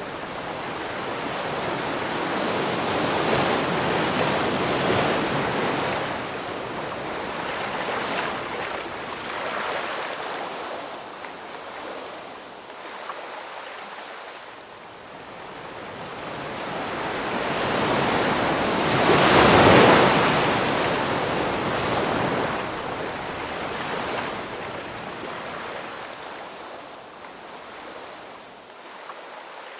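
Ocean waves breaking and washing up, rising and falling in slow surges. The biggest wave crests about two-thirds of the way through.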